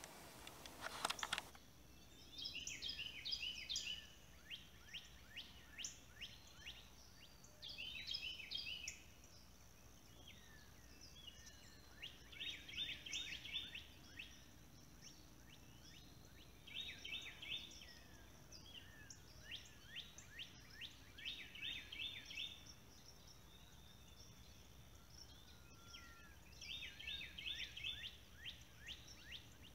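A chorus of high chirping calls: rapid, evenly spaced trills in bursts of one to two seconds, repeated every few seconds over a faint steady background.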